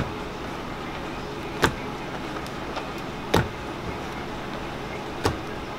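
Hot hard candy being pulled on a wall-mounted metal candy hook: four sharp knocks, spaced evenly about every second and a half or so, as the candy rope is thrown back over the hook. A steady low hum runs underneath.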